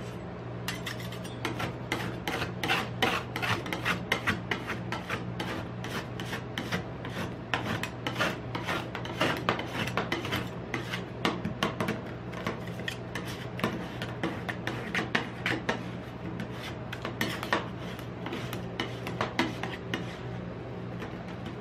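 Two metal spatulas chopping and scraping a cream base on the frozen metal plate of a rolled-ice-cream machine. The strokes are rapid, irregular taps and scrapes, several a second, over a steady low hum.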